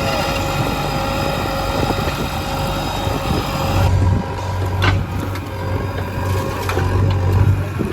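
Diesel engine of a backhoe loader running steadily while it digs and loads mud. About halfway through, a deep low hum swells as the engine works harder, and a few sharp knocks sound over it.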